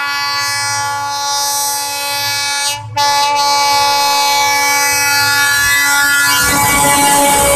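Diesel locomotive horn sounding a long, loud blast as the train approaches, cutting out briefly about three seconds in and then resuming louder. Near the end the rumble of the locomotive and wheels rises as it draws close.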